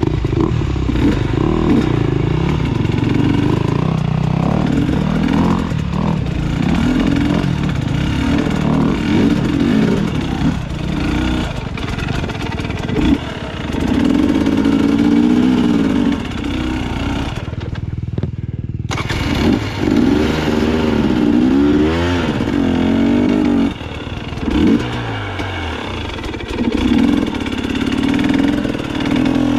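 Dirt bike engine revved up and down in short bursts, the pitch rising and falling as the throttle is worked under load over a rough, technical trail section.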